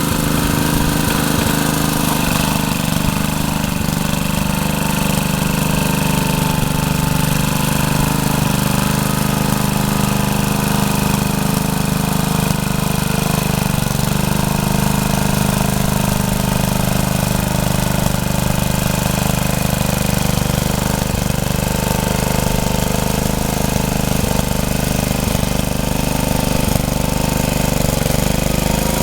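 Freshly rebuilt Troy-Bilt rototiller engine running steadily under way, its pitch wavering only slightly.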